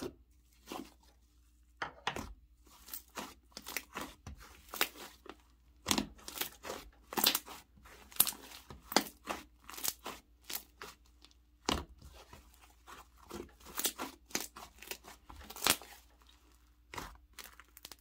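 Thick, puffy clay slime being stretched, squished and pressed by hand, giving many irregular sticky pops and crackles.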